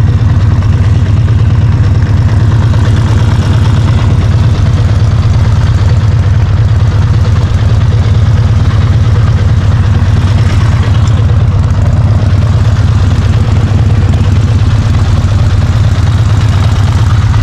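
Motorcycle engine idling steadily, with no revving or change in pitch.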